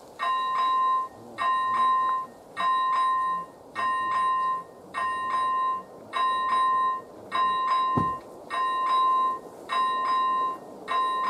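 AŽD 97 level crossing's electronic warning bell ringing as the crossing's warning switches on, one ring about every 1.2 seconds. Each ring starts with a sharp strike and holds a bright electronic tone for most of a second.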